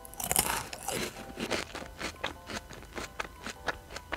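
Crunching of a dry, uncooked instant noodle block being bitten and chewed: a loud crunch just after the start, then a run of smaller crunches.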